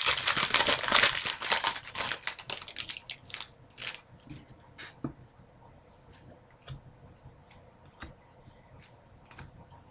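Foil wrapper of a 2011-12 Panini Certified hockey card pack crinkling and tearing as it is opened, a dense crackle for about the first three seconds. After that, scattered small clicks and rustles as the cards are handled.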